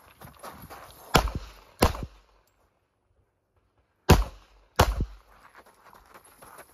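Four pistol shots in two pairs, the shots in each pair about 0.7 s apart, the first pair about a second in and the second about four seconds in, with dead silence between the pairs.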